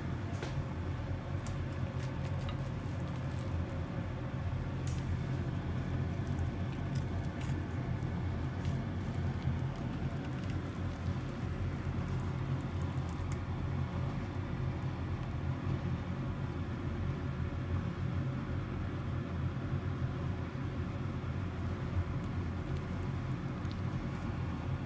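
Steady low hum in the background, with faint light clicks and soft squishes, mostly in the first half, as wooden chopsticks cut into a soft okonomiyaki on a plate.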